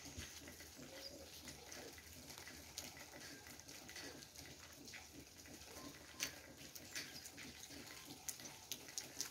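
Faint dripping and trickling water with scattered sharp ticks, and a few faint bird chirps.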